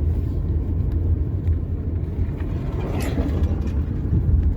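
Car driving on a rough road, heard from inside the cabin: a steady low rumble of engine and tyres, swelling briefly about three seconds in.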